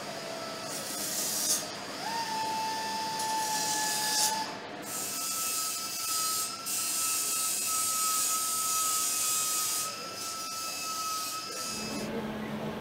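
Workshop power tool running: a steady motor whine over a hiss. The whine jumps up in pitch about two seconds in and again about five seconds in, then stops near the end.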